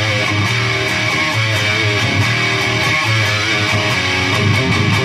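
Distorted electric guitar played through a Peavey Triple XXX II tube amp head and two-speaker cabinet on its crunch channel: a continuous crunchy rock riff with heavy low chords.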